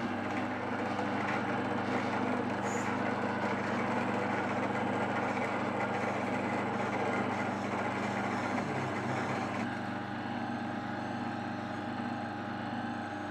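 Electric auger-type food grinder switched on, its motor starting abruptly and then running with a steady hum, a little quieter for the last few seconds.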